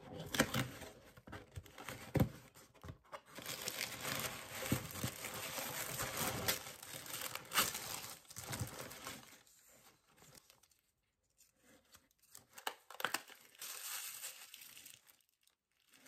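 Cardboard box flaps and tissue paper being handled: irregular tearing, rustling and crinkling as a cardboard mailer box is opened and the tissue wrapping pulled aside. The handling stops for about three seconds past the middle, then a few more crinkles follow.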